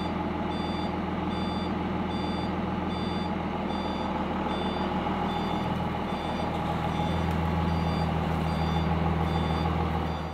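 Flatbed truck reversing, its backup alarm beeping at an even pace over the steady running of its engine. The engine gets a little louder about seven seconds in.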